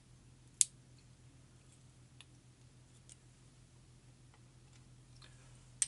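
Small metal lock parts being handled while the fifth pin stack is taken out of a disassembled pin-tumbler lock: a sharp click about half a second in and another near the end, with a few faint ticks between, over a faint steady hum.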